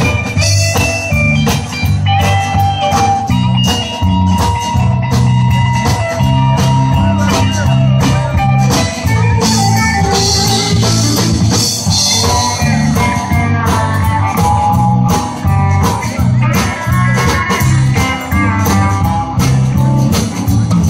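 Live band playing an instrumental break between verses: an electric guitar lead over bass, drums and strummed acoustic guitar, with no singing.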